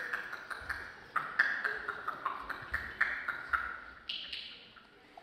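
Mouth-made sound effects from a mime performer through a headset microphone: a quick run of short ping-like clicks, about four a second, each with a brief high ringing tone whose pitch wanders up and down.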